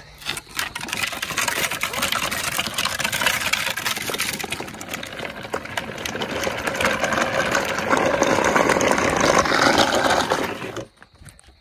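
Hard plastic wheels of a kid's drift trike rolling and skidding over the ground: a dense rattling scrape that grows louder and cuts off suddenly near the end.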